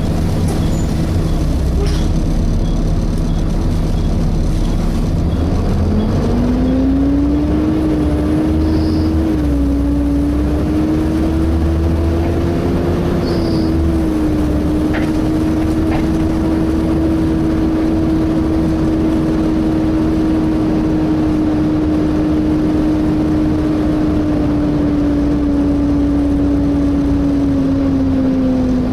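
Volvo B7TL bus's engine cooling fan, heard from on board, spinning up about five seconds in to a steady hoover-like whine. The whine holds for about twenty seconds and then eases off slightly near the end, over the continuous low rumble of the engine and road.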